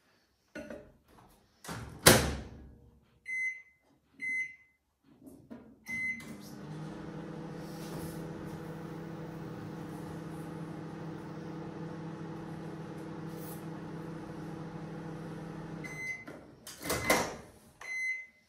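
Countertop microwave oven: the door is shut with a knock, the keypad beeps a few times, then the oven runs with a steady hum for about ten seconds. Near the end come more beeps and the clunk of the door being opened.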